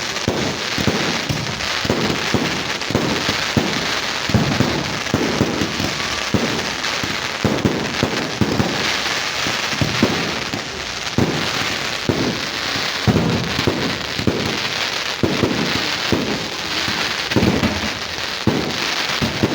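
Fireworks display in full barrage: many bangs in quick, irregular succession over a continuous crackle.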